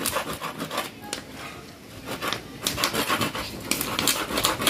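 Quick repeated rasping strokes of something being rubbed or scraped by hand. They ease off about a second in and pick up again past the middle.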